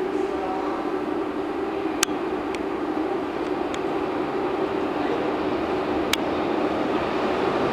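Berlin U-Bahn train approaching through the tunnel into the underground station: a steady rushing noise that slowly grows louder. Two sharp clicks are heard, about two seconds in and about six seconds in.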